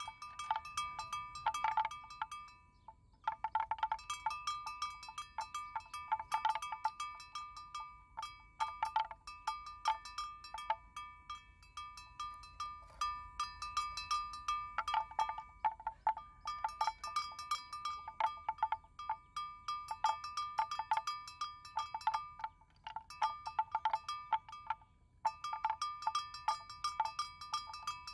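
Small metal bell on a water buffalo's neck, clanking and ringing at an uneven rate as the animal moves, with a few brief pauses.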